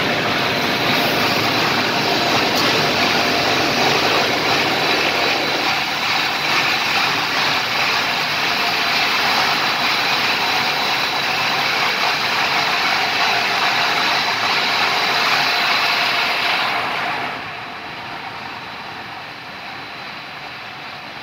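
Tape plant's granule-handling machinery running: a steady loud rushing hiss with a faint high whine. It drops noticeably quieter about seventeen seconds in.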